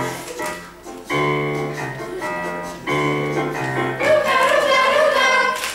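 Children's choir singing in harmony: long held chords, then louder voices with a wavering pitch from about four seconds in.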